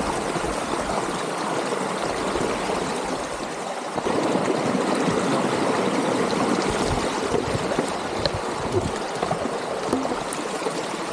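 Water of a rocky stream rushing steadily, growing louder about four seconds in.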